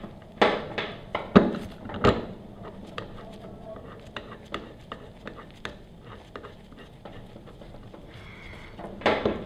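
A few sharp knocks of metal parts in the first two seconds, then light scattered ticks and clinks as bolts are turned by hand into the pressure washer pump's metal housing.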